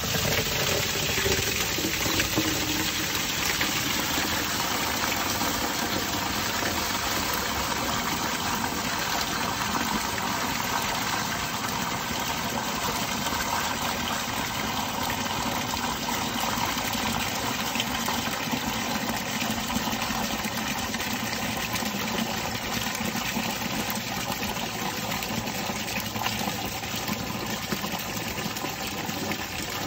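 Dirty extraction water from a carpet-cleaning van's full waste tank gushing steadily out as the tank is drained, with a faint steady hum underneath.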